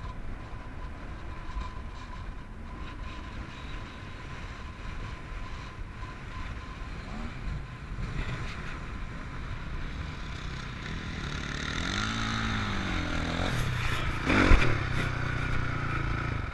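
Off-road vehicle engine running over sand dunes, with a steady rumble and wind on the microphone. About three-quarters through the engine revs up and back down, and a loud bump follows soon after.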